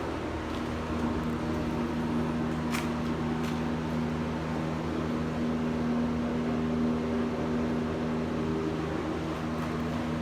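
Case TV380 skid steer running steadily, its engine and cab heater fan making a constant hum with a few steady low tones, and a couple of faint clicks about three seconds in. The heater is the noisy part.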